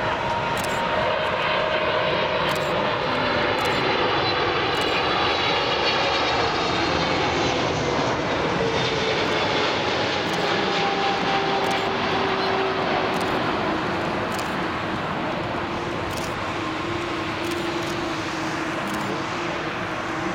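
The twin GE90-115B turbofan engines of a Boeing 777-300ER airliner on landing approach, passing low overhead: steady jet engine noise with a whine of several tones that slowly fall in pitch as the plane goes by and moves away toward the runway.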